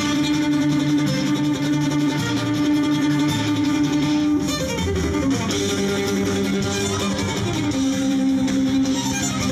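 Music for a fireworks music starmine, starting suddenly: held melody notes that slide in pitch about five seconds in and again near eight seconds.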